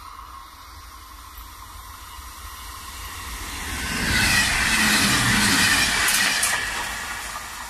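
Electric multiple-unit passenger train passing at speed on the near track. A rush of wheel and air noise builds, is loudest about four to six seconds in with a few sharp clacks, then fades as the train moves away.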